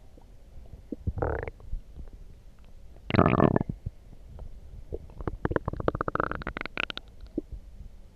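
Human stomach growling and gurgling, set off by coffee. There is a short gurgle about a second in and a louder one around three seconds, then a long crackling run of quick pops with a high squeak through it from about five to seven seconds.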